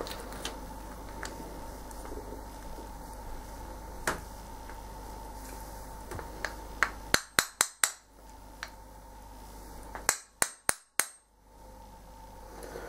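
Sharp clicks and knocks of chrome bath tap parts being handled and fitted back together. A quick run of about five clicks comes a little past the middle and four more follow a few seconds later, with fainter taps between.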